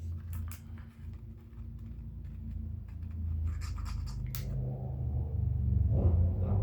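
Sharp scratches and clicks of epoxy being pressed and scraped into the brass-pin holes of a wooden musket stock, over a low hum that grows louder in the last couple of seconds.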